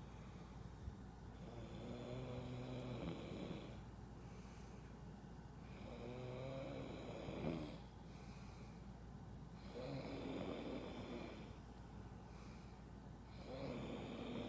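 A person snoring in a slow, regular rhythm: four drawn-out snores about four seconds apart. Under them runs the steady low drone of an airliner cabin.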